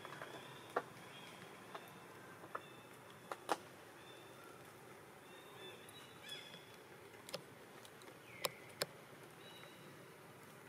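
Quiet outdoor ambience of birds chirping and insects, broken by several sharp clicks, with a short falling call about eight and a half seconds in.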